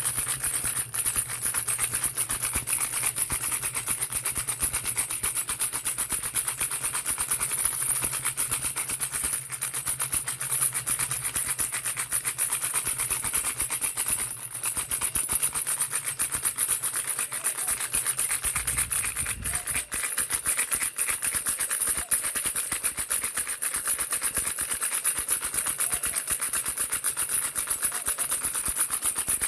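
Baby rattle being shaken nonstop, a dense, fast clatter of rattling clicks.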